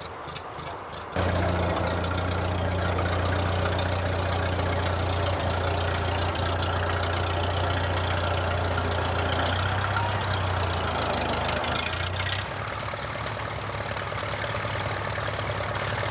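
Vintage farm tractor engine idling, a steady low hum. It gets much louder about a second in and eases off a little near the end.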